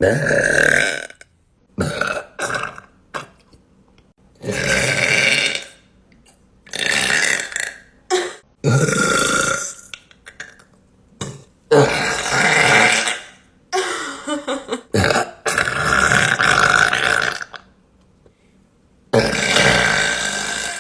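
A woman burping loudly again and again: about ten burps, several drawn out to a second or more, with short gaps between them.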